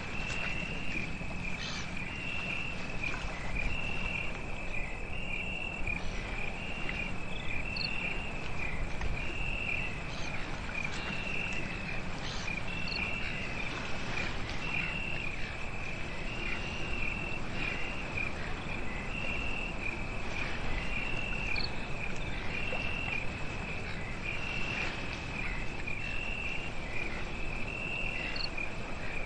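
Crickets chirping at night in a steady rhythm, about one high chirp a second over a constant high drone, with a low, even background hiss.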